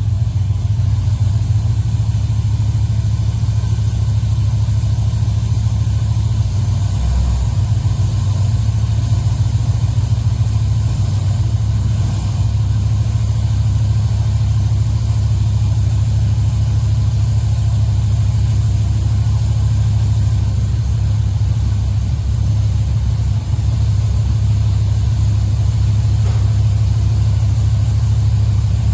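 Car engine idling steadily, a low, evenly pulsing note that shifts slightly about six to seven seconds in.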